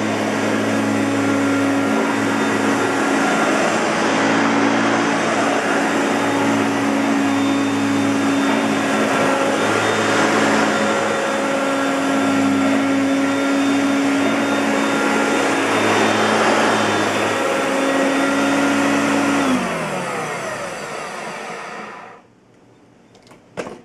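Hoover Concept Two Electronic upright vacuum cleaner running steadily, then switched off: its motor hum falls in pitch and winds down to quiet over about two seconds. A few sharp clicks come near the end.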